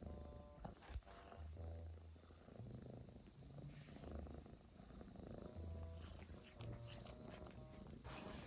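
Domestic cat purring, a low rumble that comes and goes in pulses about once a second with its breathing.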